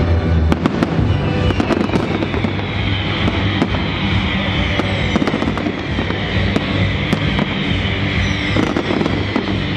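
Big aerial fireworks display: many sharp bangs in quick succession, with a dense crackle of glittering stars from about two seconds in, over music playing through loudspeakers.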